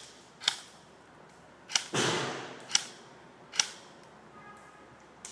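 Airsoft guns firing single shots: four sharp cracks about a second apart, with a short rush of noise just after the second one.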